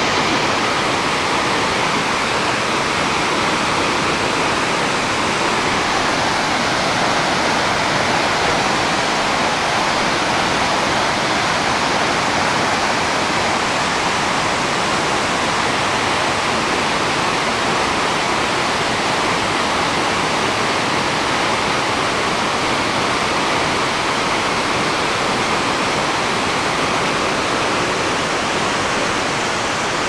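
A tall waterfall's falling water, heard as a steady, even rush that does not change.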